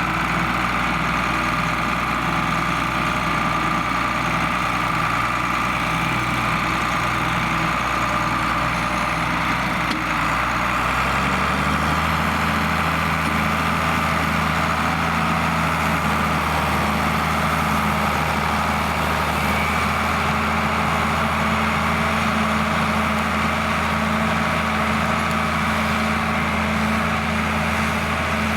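John Deere 4850 tractor's six-cylinder turbo diesel engine running steadily under load. About a third of the way in, the engine speed rises over a second and then holds at the higher pitch.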